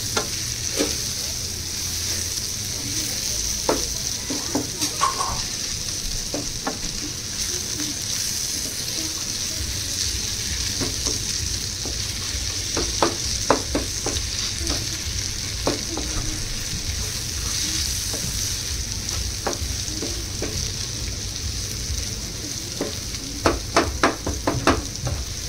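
Bitter gourd, onion and tomato curry sizzling steadily in a pan while a spoon stirs it, clinking and scraping against the pan, with a quick run of knocks near the end.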